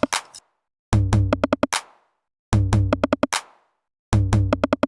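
Electronic drum-machine beat loop: a short phrase of a low bass note and a quick run of hits, repeating about every one and a half seconds with a brief silence between repeats.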